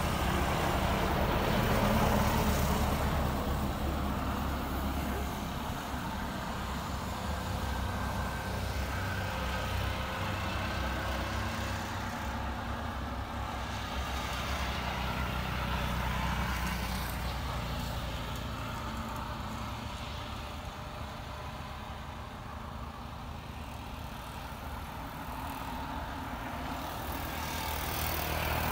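Boeing 787 airliner's jet engines running at taxi power: a steady low rumble with a faint whine, easing a little in the second half.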